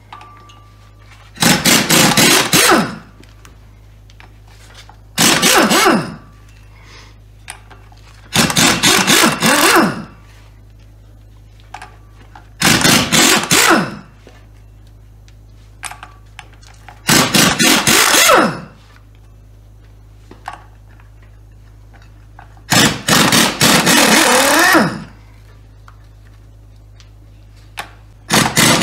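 Pneumatic impact wrench hammering on the flywheel bolts of a BMW M10 engine, working them loose. It runs in seven loud bursts of a second or two each, a few seconds apart.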